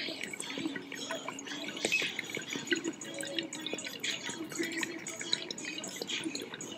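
Water bubbling in a glass dab rig as air is drawn through it: a steady run of small gurgles and pops.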